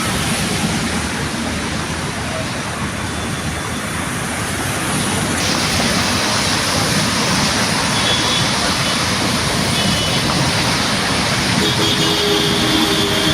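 Steady rush of heavy rain and wind, with traffic noise from a wet street; the sound shifts abruptly and turns brighter about five seconds in.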